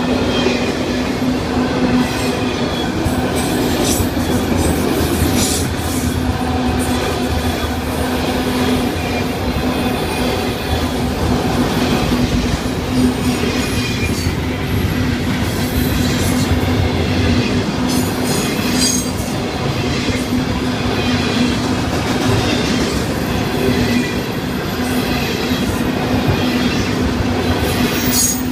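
Florida East Coast freight train's autorack and intermodal cars rolling past a grade crossing: a steady rumble of steel wheels on rail with clicking over the joints and occasional wheel squeals. Under it, the crossing bell rings as a steady pulsing tone.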